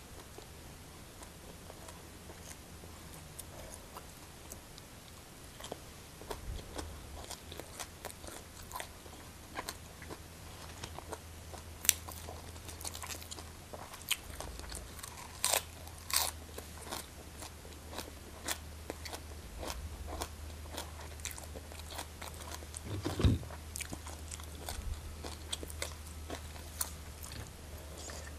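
Close-up chewing and crunching of mouthfuls of green papaya salad and raw leafy greens, with many small crisp crunches, thickest in the middle. A single dull thump sounds about two-thirds of the way through.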